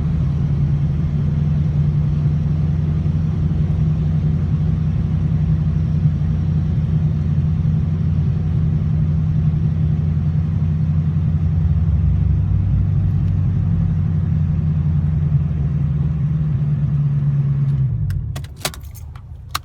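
LS1 V8 engine of a BMW 318ti running at a steady speed with a constant drone. Near the end it falls away and goes quiet, followed by a few sharp clicks.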